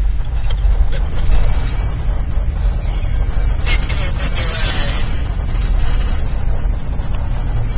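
Steady low rumble of road and engine noise inside a moving truck's cabin, with a brief brighter hiss about four seconds in.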